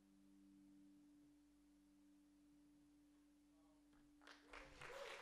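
Faint, steady low drone from the effects-processed solo violin, held at one pitch and cut off near the end. Audience applause breaks out about four seconds in.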